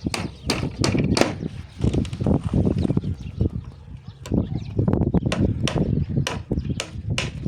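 An irregular series of sharp knocks or strikes, about two or three a second, over a low rumbling background.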